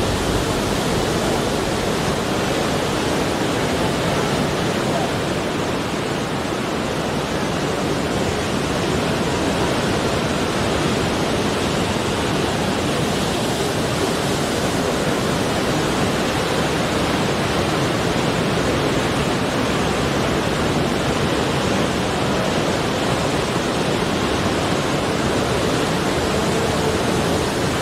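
Ocean surf breaking and washing over a rocky shore, a steady rushing noise.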